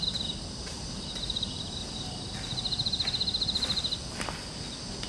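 An insect trilling in rapid, evenly pulsed high chirps. The trill stops just after the start, comes back briefly about a second in, then runs again for about a second and a half from about two and a half seconds in, over a steady high insect hum. A few faint ticks and one knock come near the end.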